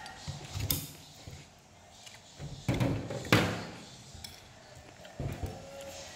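Tableware clatter while eating: a metal spoon knocking and scraping on a ceramic plate of rice, with a few sharp knocks, the loudest two about three seconds in.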